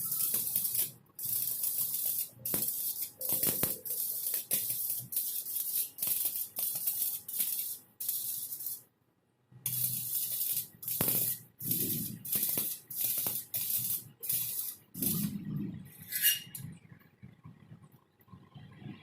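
Electric arc welding: a crackling, sizzling hiss of the arc in short bursts, struck and broken again and again, with a brief pause about nine seconds in.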